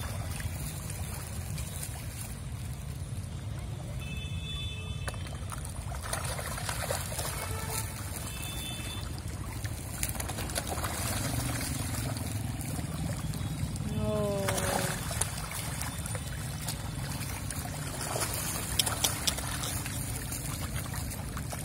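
A mass of catfish thrashing at the water surface while feeding, a continuous splashing and sloshing.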